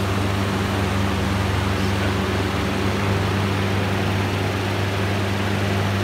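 Two box fans screwed together face to face, running as a mosquito trap: a steady motor hum under a continuous rush of air drawn through the screen.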